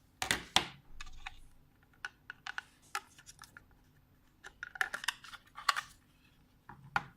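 Plastic clicks and scrapes of a wireless video doorbell's housing being opened by hand: a quick cluster of clicks at the start, scattered single clicks, then another cluster about five seconds in.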